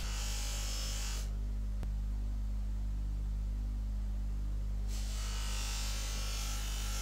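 Bench buffer running with a steady hum. A small metal part is pressed against the spinning buffing wheel for about the first second and again from about five seconds in, adding a hiss of polishing.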